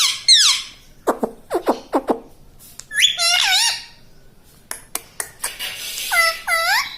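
Pet ring-necked parakeet calling in a run of squawky chirps and whistles that slide in pitch. There are a few quick downward-swept notes about a second in, a wavering call around three seconds, some clicks and two swooping calls near the end.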